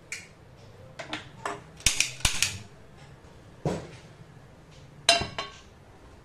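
A gas stove burner being lit: several sharp clicks from the knob and spark igniter, then a duller knock as it catches. About five seconds in, a flat iron tawa is set down on the metal pan supports with a ringing clank.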